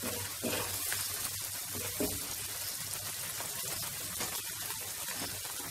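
Thick tomato-onion butter chicken gravy sizzling and simmering in butter in a pan, a steady hiss with a few light scrapes of a wooden spatula. The butter has begun to separate at the edges of the masala.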